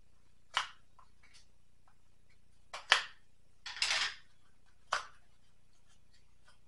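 Items and packaging being handled on a counter: a few short knocks and clacks, with a brief rustle about four seconds in, and quiet between them.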